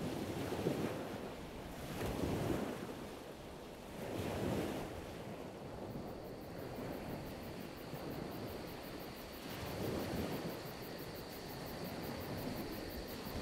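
Waves washing in on a shore, swelling and fading about every two seconds. A faint steady high whine joins about six seconds in.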